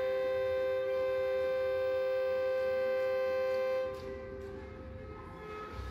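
Ice-rink horn sounding one steady two-tone blast that cuts off about four seconds in.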